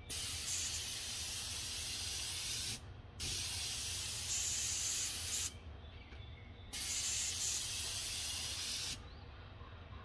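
Graco 395 Ultra airless paint sprayer with a 310 tip spraying paint: three hissing passes of two to three seconds each. Each starts and cuts off sharply as the trigger is pulled and released.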